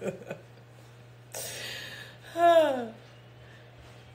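A woman's laughter tails off, then a breathy exhale comes about a second in, followed by a short, loud vocal sigh that falls in pitch.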